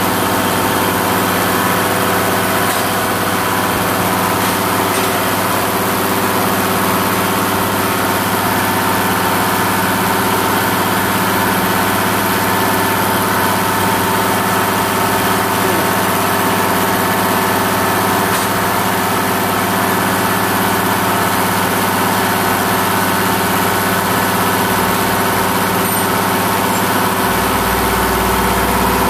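Bosch diesel injection pump test bench running steadily, driving a Mitsubishi 6D16 injection pump under calibration while its injectors spray diesel into the graduated measuring tubes. A deeper hum joins near the end.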